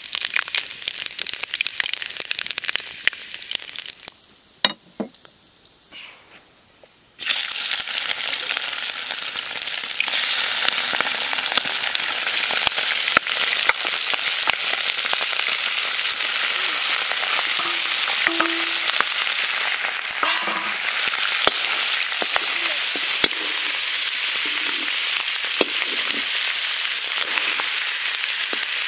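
Food sizzling as it fries in hot oil in a pan, with scattered light clicks and scrapes. About four seconds in it drops almost to quiet for some three seconds, then comes back loud and steady.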